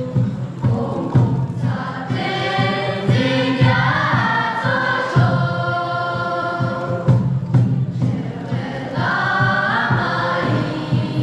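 A mixed group of students singing a song together in chorus, with long held notes.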